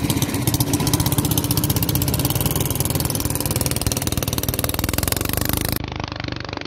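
Small longtail boat engine running under power with a fast, even pulsing; the sound stops abruptly near the end.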